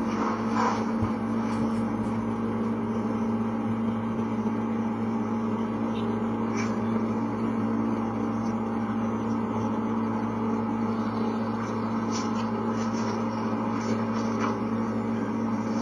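Room tone: a steady low hum over even hiss, with a few faint clicks scattered through.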